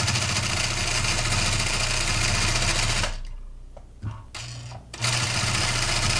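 Sit-down long-arm quilting machine stitching at a steady speed, free-motion quilting a meandering background pattern. It stops about three seconds in, gives two short spurts, and runs steadily again from about five seconds.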